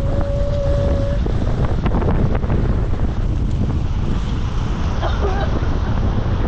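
Storm noise: wind buffeting the microphone over a steady rush of heavy rain and water. A brief steady tone sounds for about the first second.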